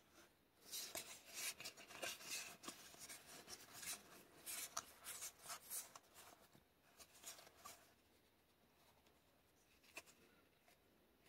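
Faint handling of Magic: The Gathering trading cards: a run of short scrapes and slides as cards are flipped through by hand, stopping about eight seconds in. One sharp click near ten seconds.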